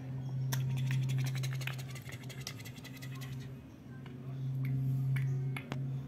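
Chunky plastic toy building blocks clicking and scraping as a child handles them, with rapid small clicks over the first three seconds or so, under a steady low hum.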